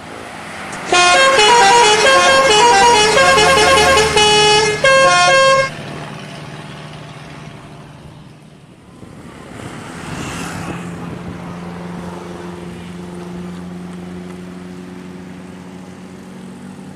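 Indonesian bus 'telolet' multi-tone horn playing a quick melody of stepping notes for about five seconds, with a brief break near the end. After it, a vehicle engine and road noise continue, swelling about ten seconds in.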